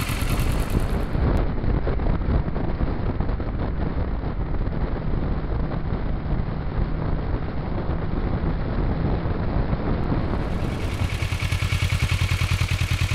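Kawasaki Ninja motorcycle engine running under way, its note turning more even and regular near the end.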